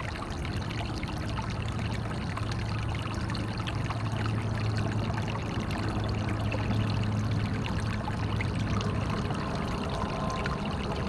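Natural stream water flowing and pouring steadily, with a constant low hum underneath.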